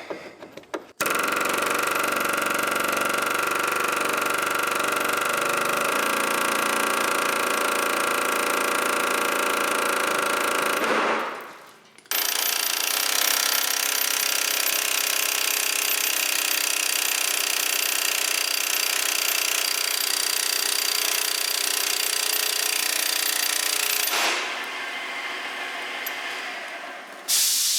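Pneumatic air hammer with a chisel rattling against the rust-jacked metal sleeve of a leaf-spring shackle bushing to break the rust loose around the seized bolt. It runs in two long bursts with a short pause about eleven seconds in, then runs lighter near the end before one short last burst.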